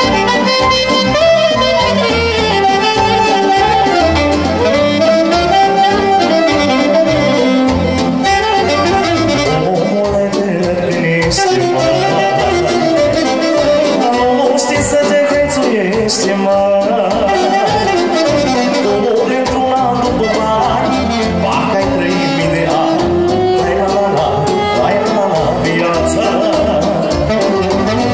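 Live band music with a steady beat: a saxophone plays the melody at first, then a man sings to violin accompaniment.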